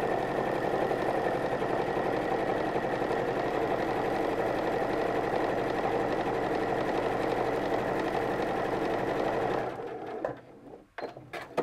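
Electric domestic sewing machine running steadily, sewing a tiny straight stitch through calico, then stopping about ten seconds in, followed by a few light clicks.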